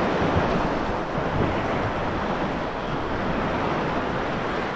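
Steady wind buffeting the microphone over the wash of small waves on the sea.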